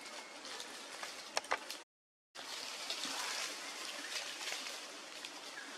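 Outdoor forest background noise, an even hiss, with two sharp clicks about a second and a half in; the sound cuts out completely for about half a second, then the hiss resumes.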